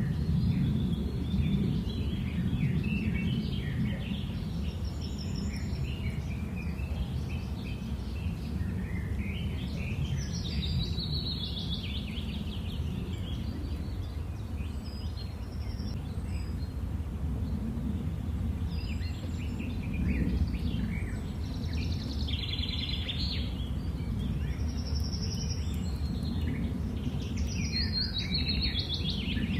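Small songbirds chirping and calling on and off over a steady low rumble.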